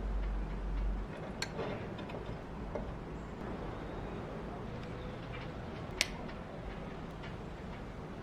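Steady low hum with a few scattered clicks and taps, the sharpest about six seconds in; a deeper rumble underneath stops about a second in.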